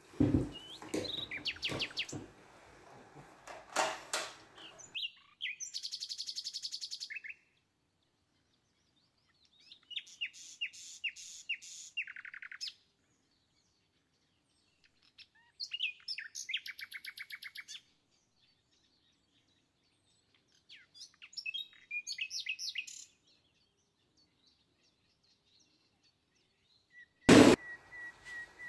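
A small songbird chirping and trilling in four short bursts of rapid repeated notes, with near silence between the bursts. A few knocks and clatter in the first seconds, and one sharp loud knock near the end.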